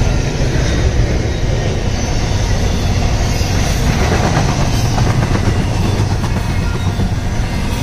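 Double-stack intermodal container train's well cars rolling past, a steady rumble of steel wheels on rail.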